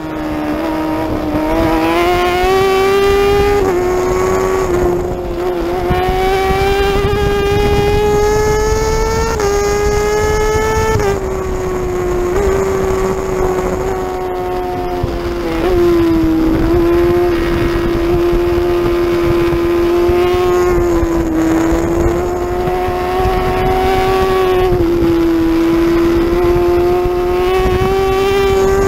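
Racing superbike engine heard onboard at full song, held high in the rev range around ten to twelve thousand rpm. Its pitch climbs and then steps as the rider shifts gears several times, with wind noise rushing under it.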